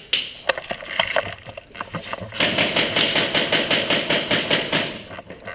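Airsoft guns firing indoors: a few separate sharp shots, then about halfway through a sustained rapid burst of about seven shots a second that stops shortly before the end.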